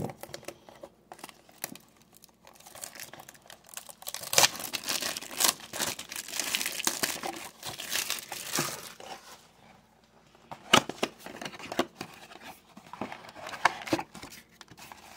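A cardboard trading-card blaster box being opened by hand: its packaging crinkles and tears in an irregular run of rustles, densest through the middle, then a few separate sharp clicks near the end.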